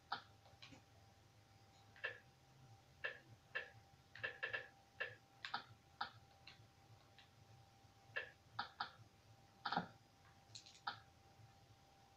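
Faint, irregular light clicks, some single and some in quick clusters of two or three, with the loudest just before ten seconds in, over a faint steady hum.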